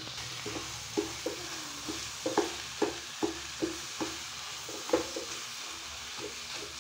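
Wooden spatula stirring and knocking against a non-stick wok, with short scrapes and taps about every half second. It is turning mashed boiled potatoes into onions and green chillies frying in ghee, over a steady sizzle.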